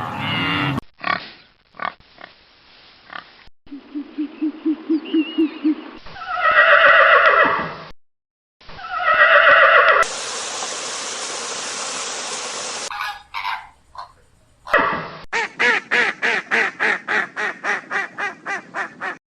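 A montage of different animal calls in quick succession: a run of low, evenly pulsed grunt-like sounds, then two loud drawn-out calls, a few seconds of steady hiss, and near the end a rapid series of short pitched calls, about four a second.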